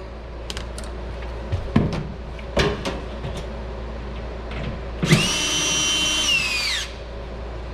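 Cordless screw gun running for about two seconds with a steady whine that drops in pitch as it stops, backing a grabber screw out of a range hood; a few sharp clicks and knocks before it.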